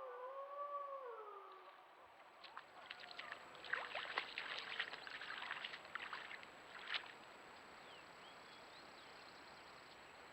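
Several wolves howling together, their overlapping long gliding howls fading out about a couple of seconds in. Then comes a few seconds of irregular clicks and crackles, the loudest sounds here, followed by a faint steady hiss.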